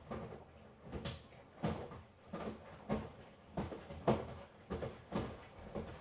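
Miele washing machine drum turning, with the laundry tumbling inside: a soft thud and swish a little under two times a second in an even rhythm.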